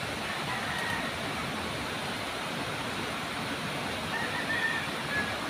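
Steady rush of river water pouring over a low weir, with a few faint short high chirps about half a second in and near the end.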